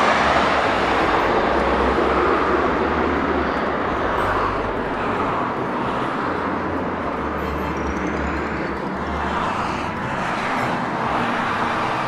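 Jet noise of a twin-engine regional airliner that has just passed low overhead on final approach, fading slowly as it flies on to touch down. Wind rumbles on the microphone.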